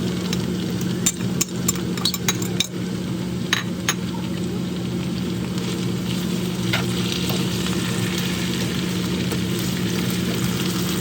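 Food sizzling as it fries in a pot, with a utensil clicking against the pot several times in the first four seconds as it is stirred, then a steady sizzle. A steady low hum runs underneath.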